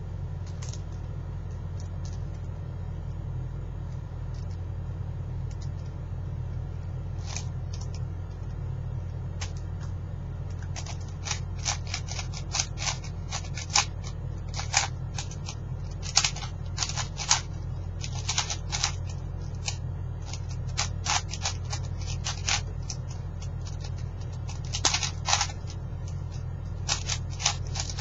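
4x4x4 puzzle cube being turned rapidly by hand in a speedsolve: irregular runs of quick plastic clicks and clacks, sparse at first and dense from about ten seconds in, over a steady low hum.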